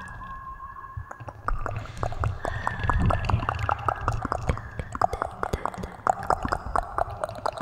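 Close-miked ASMR wet mouth sounds: a rapid, irregular run of soft wet clicks and smacks, starting about a second in.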